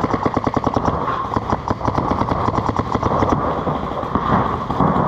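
Paintball markers firing in rapid strings, a continuous rattle of shots at about ten a second.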